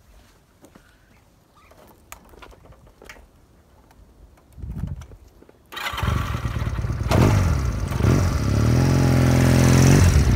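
Mondial MCT 250 cruiser motorcycle engine starting about halfway through, catching suddenly and loud, the revs dropping and then settling into a steady idle. Faint footsteps before it.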